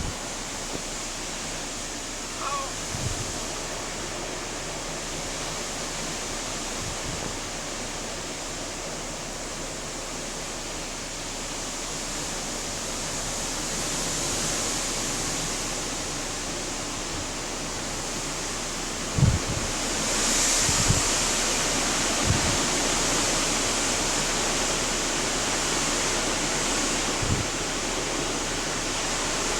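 Hurricane storm noise: a steady rush of wind and rain, swelling about two-thirds of the way through. Several short low thumps are wind gusts buffeting the microphone.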